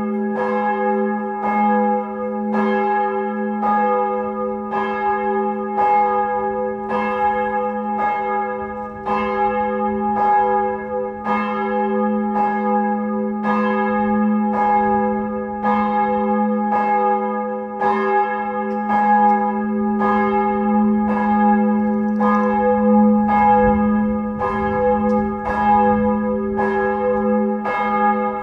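Church bell ringing steadily, struck in an even rhythm of a little more than one stroke a second. Its low hum rings on between the strokes.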